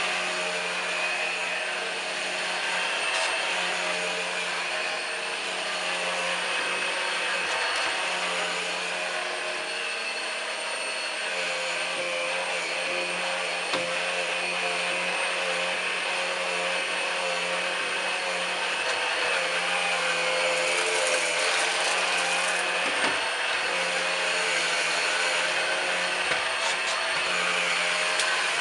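Numatic Henry Quick HEN70 cordless stick vacuum running steadily while cleaning, its motor note holding even, with a few small clicks and knocks along the way.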